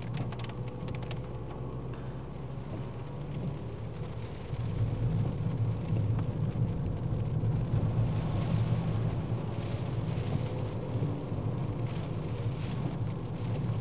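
Road and engine noise of a small Ford Fiesta driving on wet roads in the rain, heard from inside the cabin as a steady low rumble with a hiss over it. It grows louder about four and a half seconds in.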